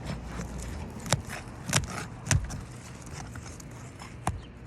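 Asphalt roof shingle being worked loose from the shingle beneath it: scraping and crackling as the seal between them breaks, with four sharp snaps.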